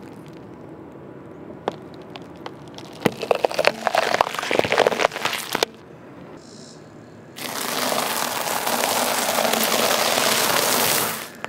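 A car tyre crushing bell peppers: a few sharp cracks, then a dense run of cracking from about three to five and a half seconds in. After a short lull, a steady, loud crunching lasts about four seconds as the tyre grinds a pile of crunchy yellow snack sticks.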